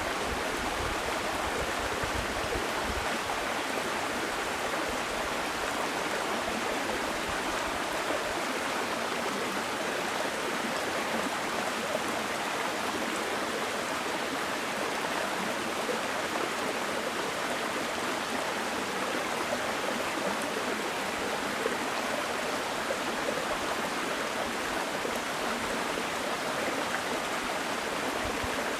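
Small mountain stream flowing over rocks: a steady rush of water.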